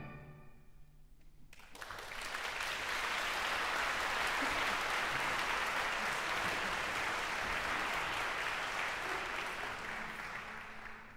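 Concert audience applauding, breaking out about two seconds in as the orchestra's final chord dies away in the hall, holding steady and fading near the end.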